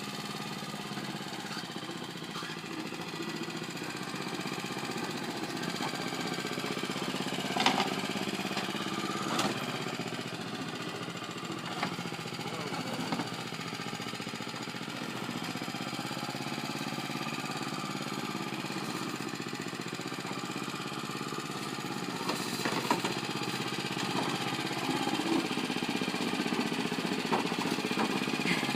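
Exmark Commercial 30 walk-behind lawn mower running steadily while mowing, with a few sharp clicks or knocks.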